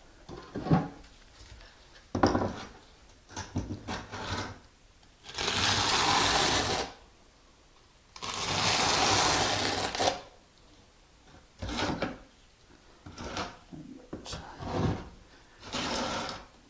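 Drill with a mixing paddle running in a bucket of thin-set mortar in two bursts of about a second and a half each, remixing thin-set that has started to dry out. Short knocks and scrapes come before, between and after the bursts.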